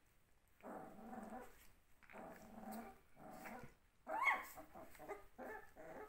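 Puppies play-fighting: a run of growls, each about half a second to a second long, then a sharp high yelp about four seconds in, the loudest sound, then shorter choppy growls.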